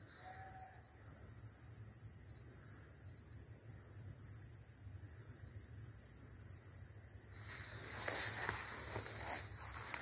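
Steady high-pitched insect chorus, an unbroken trill. In the last couple of seconds, bursts of rustling noise join it.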